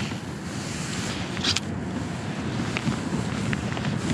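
Wind buffeting the microphone with a steady low rumble. A brief swish comes about one and a half seconds in as a baitcasting rod is cast from the kayak.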